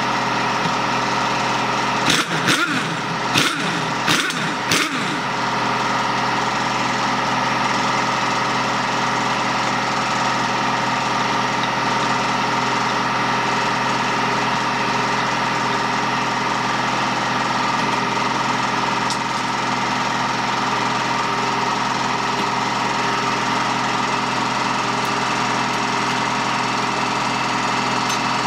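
Air compressor running steadily. About two to five seconds in come a few short, sharp knocks from a pneumatic impact wrench on the clutch-basket nut.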